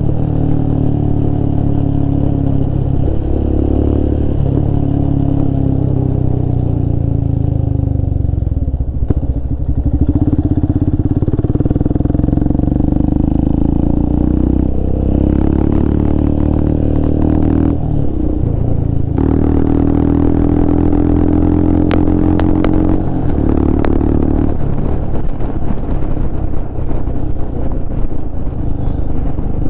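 Royal Enfield Himalayan's 411 cc single-cylinder engine running through a Red Rooster aftermarket exhaust with the dB killer removed, heard from the rider's seat on the move. The loud, deep exhaust note climbs as the throttle opens and drops back several times at gear changes or when the throttle is closed.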